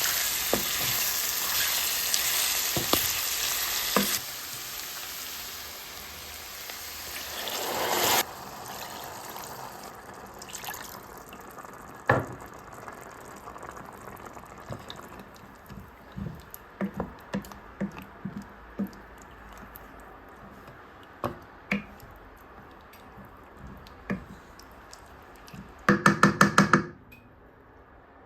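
Food sizzling in a cooking pot while being stirred. The sizzle drops about four seconds in, swells again and cuts off around eight seconds, leaving scattered taps and scrapes of a utensil against the pot. Near the end comes a quick run of about six loud, ringing knocks.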